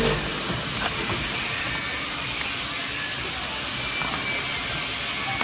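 Sealed plastic snack packets rustling as they are handled and rubbed against each other, heard as a steady hissing rustle.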